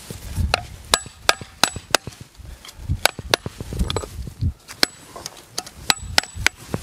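A dozen or so sharp, irregular taps of a chisel cutting off the protruding end of a levelling shim under a stone block, some with a brief metallic ring.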